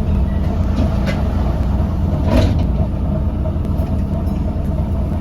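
Double-decker bus heard from inside, running with a steady low engine and drivetrain drone. There is a short knock about two and a half seconds in.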